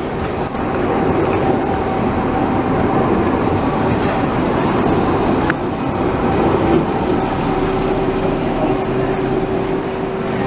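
Škoda 15T low-floor articulated tram moving slowly past at close range, its running gear rumbling over the street track, with a steady whine from its drive that drops to a lower tone near the end.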